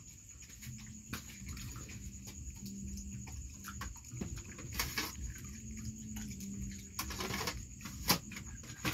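Dog eating rice from a metal bowl: irregular wet chewing and smacking with small clicks, and one louder sharp click about eight seconds in.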